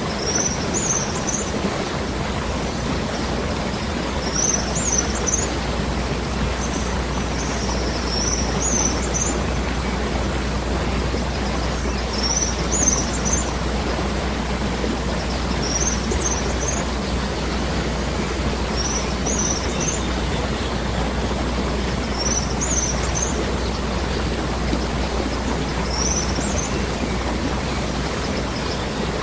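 Waterfall rushing steadily, with a bird repeating a short high chirping call about every three to four seconds.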